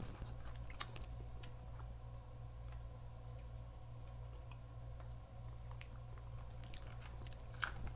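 Faint, scattered clicks and taps of fingers handling a clear plastic snack tray, over a steady low hum.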